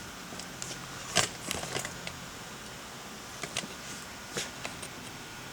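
A few scattered light clicks and taps from small objects being handled, over quiet room tone.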